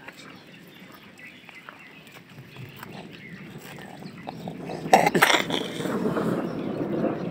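A cow breathing out noisily close to the microphone: a sudden loud burst about five seconds in that lasts about two seconds, after faint scattered clicks.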